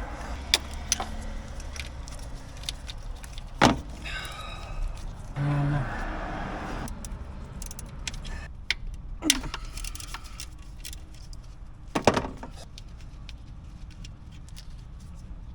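Hand tools and small parts handled in a car's engine bay: scattered sharp clicks and metallic clinks, the loudest a little over three seconds in and again about twelve seconds in, with a short buzzing stretch of about a second and a half near the middle.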